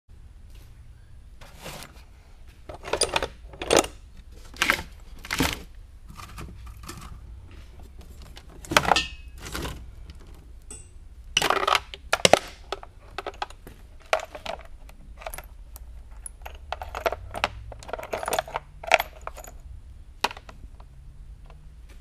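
Steel roller chain and loose metal parts clinking and rattling in irregular bursts as they are dug out of scrap bins, with lighter clicks of chain links being handled in the second half.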